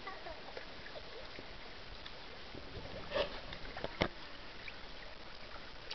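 Pool water lapping and splashing lightly around a ride-on pool toy as it is paddled along, with two short sharp splashes or knocks, about three and four seconds in.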